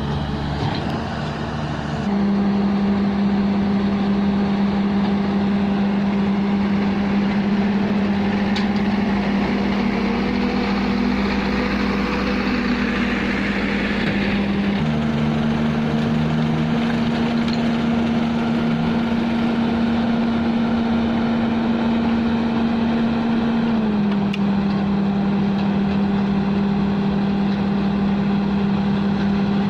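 A heavy diesel engine of quarry machinery runs steadily, its note shifting slightly a few times. A rougher hiss joins in around the middle.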